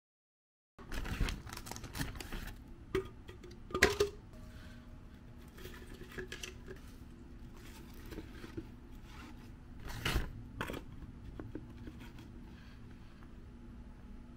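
Food-preparation handling sounds starting about a second in: rustling and light clicks, with a sharp clink about four seconds in and another about ten seconds in, as a metal spoon works in a glass jar of sauce.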